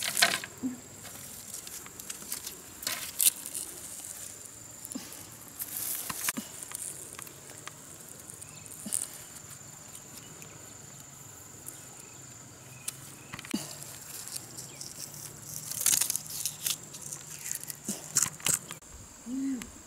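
Scattered rustles and light knocks of bamboo pieces, cord and a bamboo bow stave being handled, over a steady high-pitched insect drone.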